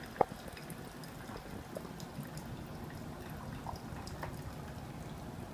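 Single-serve pod coffee maker dispensing freshly brewed coffee into a cup: a steady trickle with small drips. A sharp click about a quarter second in is the loudest sound.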